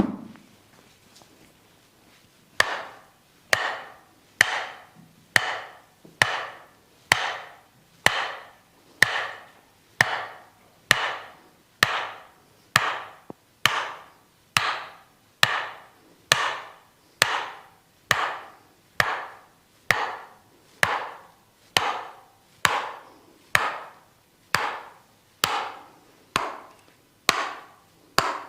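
Massage hammer striking the body in a slow, steady rhythm, a little more than one blow a second, each a sharp knock with a short fading ring. It opens with a single knock, then about two seconds of quiet before the series begins.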